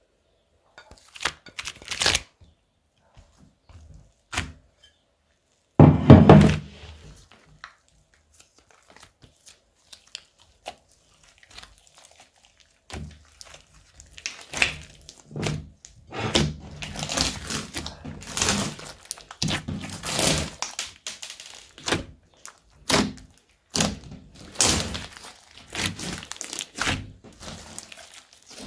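Slime being squished and kneaded by hand, with sticky crackling and popping. A few scattered clicks early on, a heavy thud about six seconds in, then almost continuous squelching crackles through the second half.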